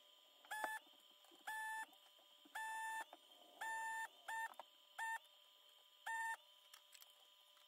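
Desoldering gun's vacuum pump buzzing in seven short bursts, each lasting a fraction of a second, as solder is sucked off the pins of the old power switch on a Commodore 64 motherboard.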